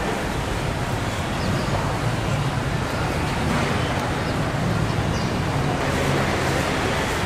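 Steady background noise of a busy market: a low, even rumble with indistinct voices.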